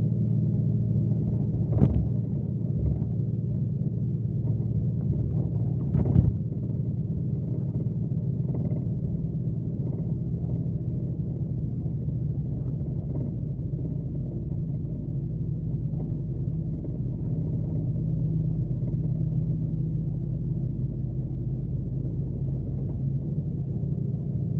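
Scania K370C coach's rear-mounted diesel engine running steadily, a low drone heard from inside the bus. Two short knocks come through about two and six seconds in.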